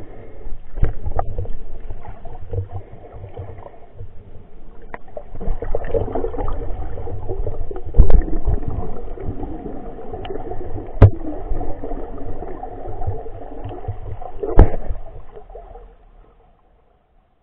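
Muffled underwater sound heard through a cheap waterproof camera's housing: a low, churning rumble of water moving, broken by sharp knocks and clicks, three of them loud. It fades out near the end.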